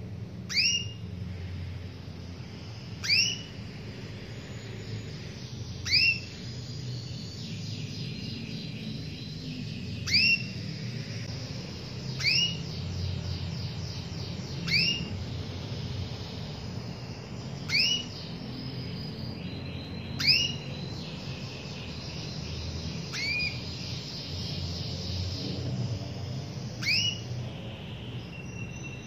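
Domestic canary singing: about ten loud, sharp chirps that sweep steeply up and then fall, each a few seconds apart, with fast rolling trills between several of them.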